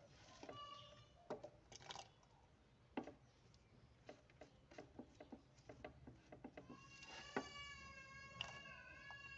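Faint scattered clicks and taps, then, from about two-thirds of the way in, an animal's long cry held at a fairly steady high pitch for about three seconds, rising a little at its end.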